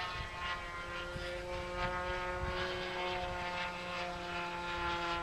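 Glow-fuel model airplane engine, an OS FX .61 two-stroke, running steadily on a radio-controlled plane in flight, a buzzing note that sinks slightly in pitch. Wind rumbles on the microphone underneath.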